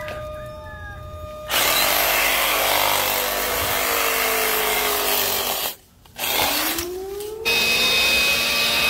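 A small cordless chainsaw cuts into a fallen tree branch, starting about a second and a half in, and its motor winds down about halfway through. A battery leaf blower then spins up with a rising whine and blows steadily near the end.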